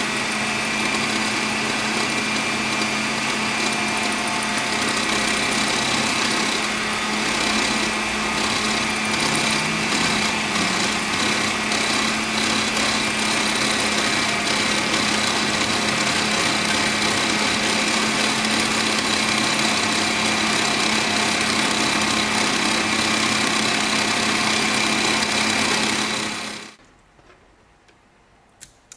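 Motorised line-spooling machine running steadily with a constant whine as it winds braided fishing line onto a spinning reel. It cuts off suddenly near the end.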